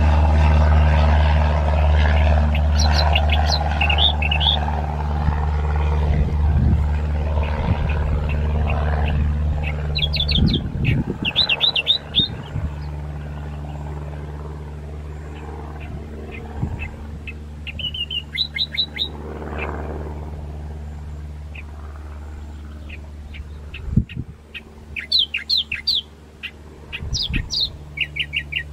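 Single-engine light aircraft's propeller drone, loudest at the start and fading as the plane flies off. Small birds chirp in short, quick clusters several times over it.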